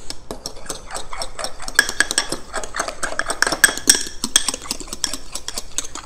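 A utensil stirring keto bread batter in a small bowl: quick, steady clinks and scrapes against the bowl, several a second.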